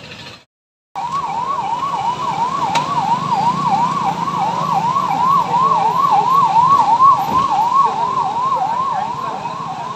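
An electronic siren sounding a fast, loud rising-and-falling whoop, nearly three cycles a second, starting about a second in after a brief silence, over a low steady hum.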